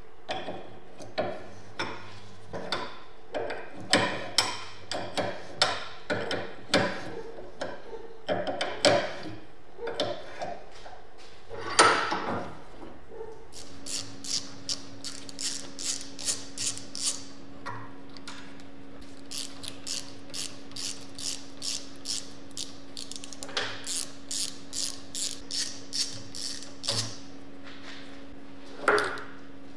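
Metal tool clicks and clanks as a pedal is worked loose from a rusty steel crank arm with a wrench, ending in a loud knock near the middle. Then comes a fast, even ratchet clicking, about four to five clicks a second, as a hand driver turns the pivot bolt out of a bicycle brake lever held in a vise.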